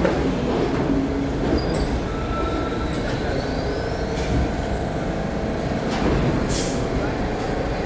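R62 subway train slowing to a stop at the platform: a steady low rumble from the cars rolling, with faint high squeals and a faint rising whine. Two short hisses of air come near the end as the train comes to rest.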